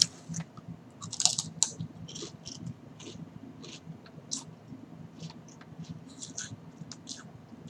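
Someone chewing potato chips: irregular small crisp crunches, several close together about a second in, then sparser, over a faint low hum.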